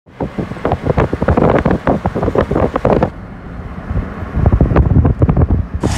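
Wind buffeting the microphone in loud, irregular gusts and crackles, with a sudden change in tone about three seconds in.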